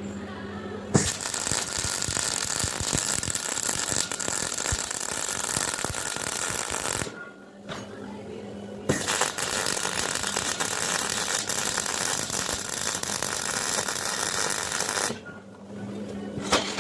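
Gas-shielded MIG welder arcing on the steel of a spreader drawbar, crackling in two runs of about six seconds each. The first starts about a second in and the second about nine seconds in, each starting and stopping abruptly.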